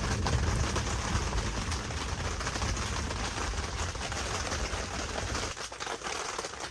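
Steady rain pattering on a tent, a dense spread of small drop impacts, with a low rumble underneath that stops about five and a half seconds in.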